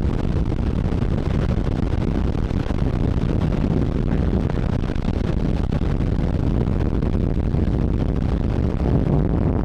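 Strong wind buffeting the microphone: a steady low rumble.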